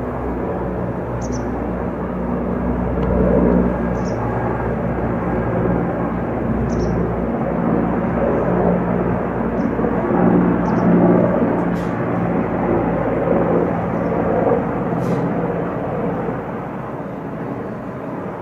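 Military helicopter flying, a steady drone of rotor and engine, with a few short high chirps scattered through it.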